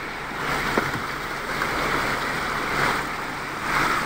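Muddy floodwater rushing in a steady torrent across a road.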